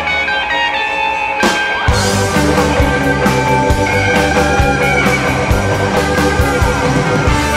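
Background music with a band sound. A bass line and a steady drum beat come in about two seconds in.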